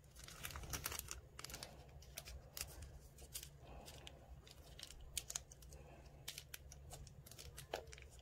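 Faint, irregular crackling and ticking of disposable gloves and tape being pressed and smoothed over a thin hot-glue mold on a frame corner, over a low steady hum.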